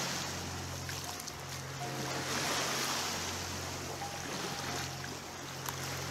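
Sea waves washing onto a beach, the surf swelling about two seconds in, over a steady low hum.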